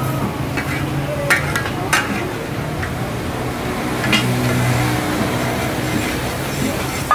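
Steel spatulas scraping and clanking on a large flat iron griddle as minced meat is stirred and chopped, in the taka-tak style. A few sharp clanks stand out over a steady sizzle and a low hum.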